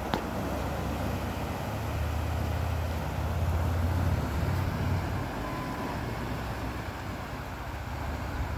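Water rushing and churning out below closed canal lock gates as the chamber is lowered, released through small underwater gates. A steady rush, with a low rumble underneath that swells a couple of seconds in.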